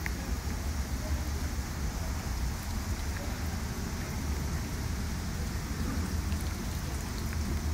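Steady outdoor background noise: an even hiss with a low rumble beneath and a few faint ticks, with no distinct sound standing out.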